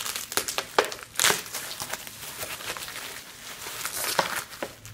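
Plastic bubble wrap crinkling and rustling as it is pulled off a boxed vinyl figure, with a few sharper crackles.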